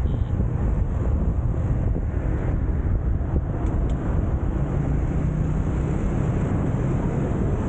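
Wind buffeting a car-roof-mounted camera's microphone while driving, over a steady rumble of road and traffic noise. A low engine hum rises above it for a moment a little past the middle.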